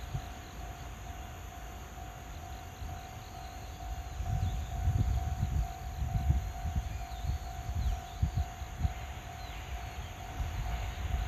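Japanese railway level-crossing warning bell ringing steadily: one mid-pitched electronic tone repeating fast while the barriers are down ahead of an approaching train. A low, uneven rumble swells in about four seconds in and is louder than the bell.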